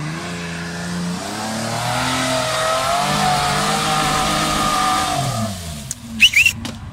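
A lifted 4x4 SUV's engine revving hard under load on a climb up a steep dirt bank, its tyres spinning in the soil. The revs rise and hold, then fall away about five and a half seconds in, followed by two short, sharp, high sounds.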